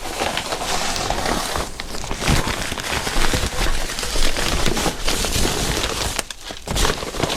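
Crinkling and rustling with many small clicks, as parts or packaging are handled and rummaged through; it drops away briefly about six seconds in.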